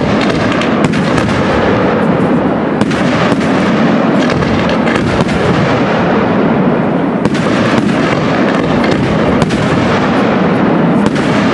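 Aerial fireworks display: many shells bursting in quick succession. Sharp bangs come over a dense, continuous wash of blasts and their echoes.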